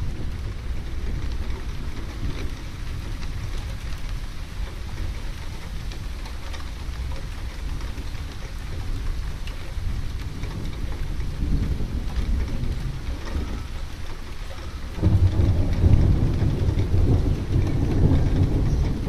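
Steady rain falling, with the low rumble of thunder underneath. The rumble swells suddenly about fifteen seconds in and stays louder to the end.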